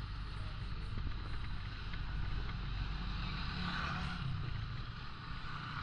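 Steady engine and road noise from a moving vehicle on a rough dirt road.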